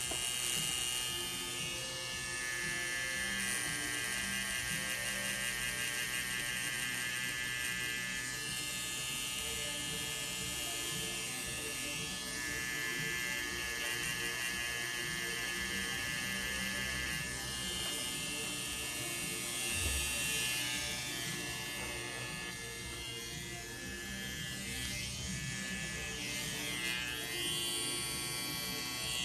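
Electric tattoo machine running on skin with a steady buzz, its tone shifting now and then as the needle works.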